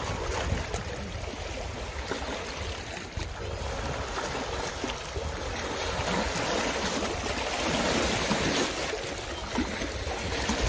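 Lake water washing and trickling among wet shoreline rocks, a steady splashing.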